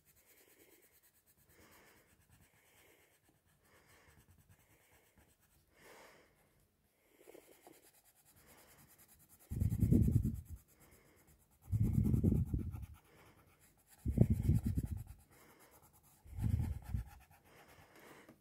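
Coloured pencil shading on paper: faint scratching at first, then four bursts of rapid back-and-forth strokes, each about a second long, in the second half.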